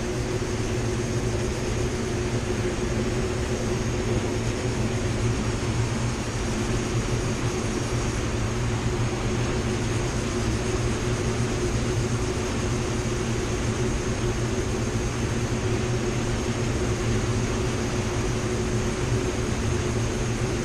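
Paint spray booth's ventilation fans running: a steady drone with a constant low hum and a faint high whine.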